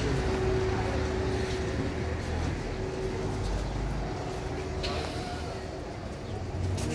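Steady low rumble of a vehicle in motion, with a steady hum over it and a sharp click about five seconds in.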